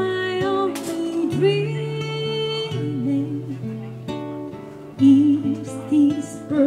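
Live band music: an acoustic guitar playing under a woman singing into a microphone, her voice held on long notes with vibrato in the last couple of seconds.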